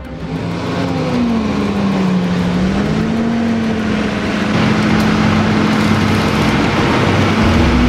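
FV432 tracked armoured personnel carrier driving over rough ground close by. Its engine runs with a pitch that dips and rises and then holds steady, over a rushing clatter of tracks and ground.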